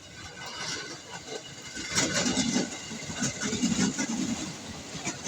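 An electric commuter train running at the platform, a low rumble with clattering that grows louder about two seconds in.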